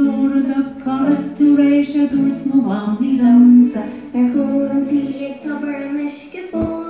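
A group of voices singing a song together, unaccompanied.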